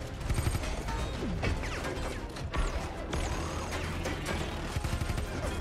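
Film action sound mix: rapid gunfire and bullets striking metal, with crashes, over a background music score.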